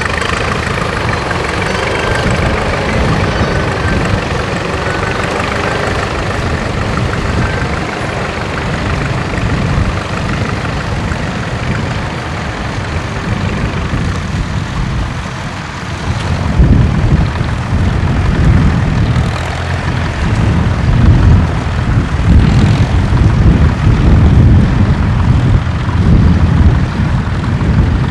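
Tractor engine running steadily under load. From about halfway, a heavier, uneven low rumble rises and dominates.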